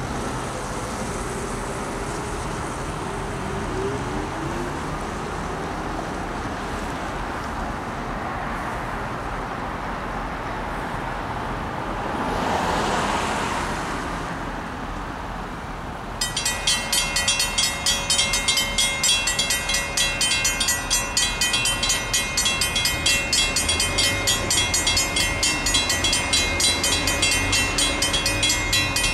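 Cars pass on the street, one loudly near the middle. About halfway through, the crossing's mechanical bells suddenly start ringing in quick, even strokes: the crossing signal has activated for an approaching train.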